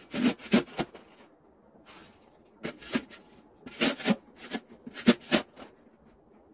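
Metal snow shovel scraping and scooping packed snow in short, quick strokes, coming in about four bursts with brief pauses between.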